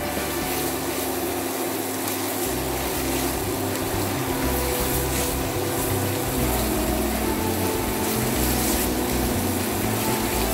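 Background music with a steady bass line that steps from note to note, over a steady hissing noise.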